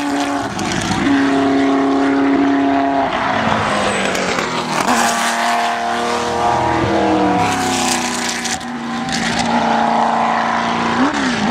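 Racing cars' engines, among them a Ford GT40's V8, running hard as the cars take a corner one after another. The engine pitch steps down and up repeatedly with braking, gear changes and acceleration, with a quick rev blip near the end.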